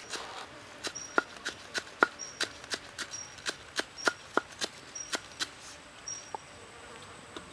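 Chef's knife chopping green onions on a wooden chopping board: sharp, even knocks about three a second, stopping about six seconds in.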